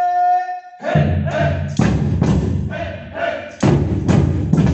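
Batucada drum ensemble: a long held vocal call, then surdo bass drums and snare drums start playing about a second in with short shouted calls over them, and the full group comes in densely about three and a half seconds in.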